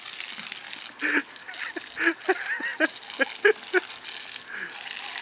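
Weimaraner puppy snapping at the water jet from a garden hose, making a quick run of short vocal sounds between about two and four seconds in, over the steady hiss of water spraying onto a wooden deck.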